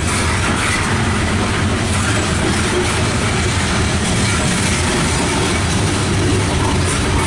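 Loaded coal cars of a freight train rolling past: a steady rumble of steel wheels on the rails.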